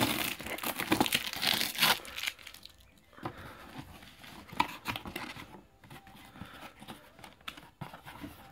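Packing tape being ripped off a cardboard box, loud for the first two seconds, then quieter rustling and scraping as the cardboard flaps are pulled open.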